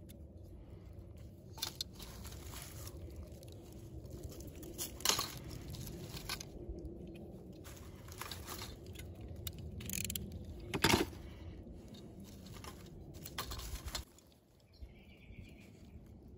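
Woody crunches and sharp clicks a few seconds apart, from branches being cut and handled during tree grafting work, over a steady low rumble. The sharpest click comes near the end.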